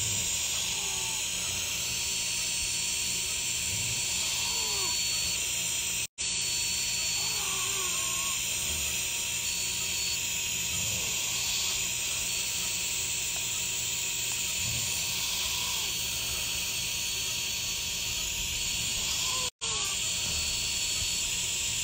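Steady hiss of dental suction running during root canal filling; it drops out abruptly twice, for a moment each time.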